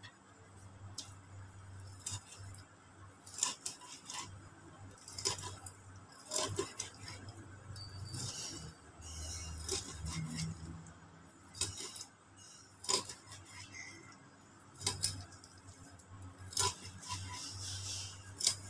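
Kitchen knife slicing raw fish thinly on a wooden cutting board: irregular knocks and clicks of the blade on the board, with a few short scraping strokes.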